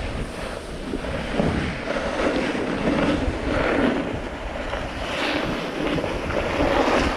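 Wind buffeting the microphone and the hiss of sliding fast down a groomed slope over packed snow, swelling and easing.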